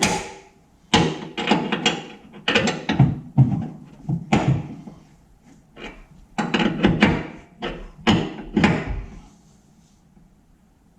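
A run of clanks and knocks from tools and metal parts being worked, in irregular clusters with a few brief squeaks among them.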